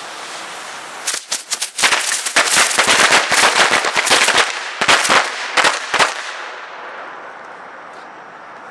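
Firecrackers going off in a rapid, uneven string of sharp cracks for about five seconds, starting about a second in. The cracks are preceded by a steady fizzing hiss, and the sound fades back to a hiss afterwards.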